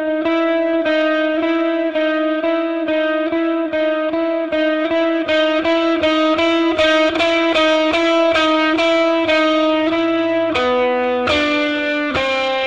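Electric guitar playing a blues instrumental, picking a repeated high note about two times a second, then stepping down to lower notes near the end.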